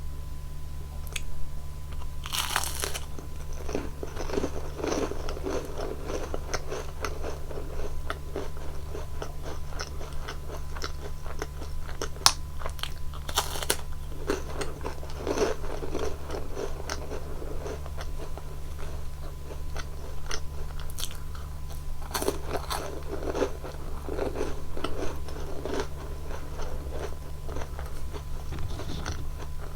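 Close-miked biting and chewing of Nunettine, crisp, sugar-glazed flaky puff-pastry cookies dipped in whipped cream. There are three sharp crunching bites, each followed by crunchy chewing. A steady low hum runs underneath.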